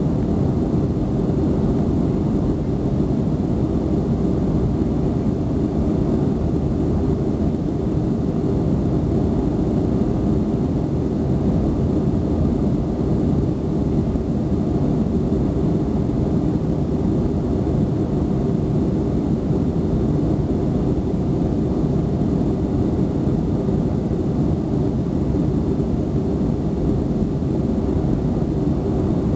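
Boeing 737 cabin noise during the climb after takeoff: a steady, even rumble of the jet engines and rushing air, with no change in level.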